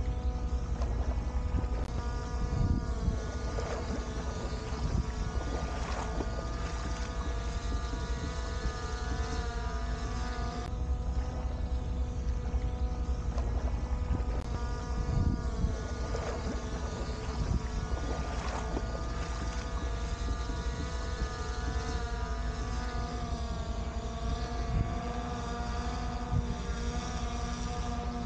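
Skydio 2 quadcopter drone hovering overhead, its propellers giving a steady whine of several tones that waver slightly in pitch, with wind rumbling on the microphone.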